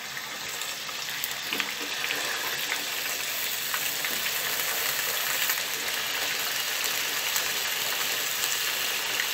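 Thick round potato slices frying in hot oil in a pan: a steady sizzle with scattered crackles, a little louder from about two seconds in.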